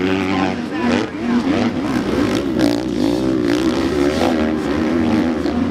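Several motocross bikes racing together, their engines overlapping. Each engine's pitch keeps rising and falling as the riders open and close the throttle over the jumps.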